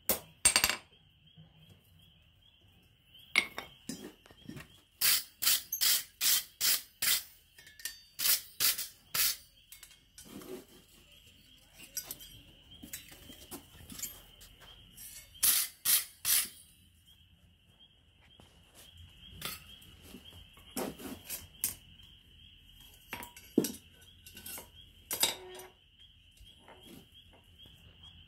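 Blacksmith's 1 kg engineer's hammer striking hot iron on an anvil. The blows come in bursts of quick ringing strikes, about two a second at their quickest, with pauses of a few seconds between bursts.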